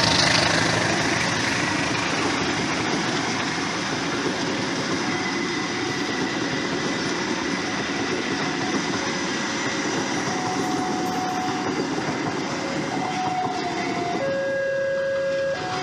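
Passenger coaches of a local train rolling past over the rails and junction points, a steady rumble of wheels on track that is loudest at the start. Faint steady tones come in after about ten seconds, and a level-crossing warning alarm sounds for the last couple of seconds as alternating two-tone beeps.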